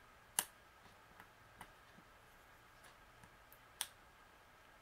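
Tweezers clicking and tapping against resin diamond-painting drills on the canvas while picking at a broken drill: two sharp clicks, one near the start and one near the end, with a few faint ticks between.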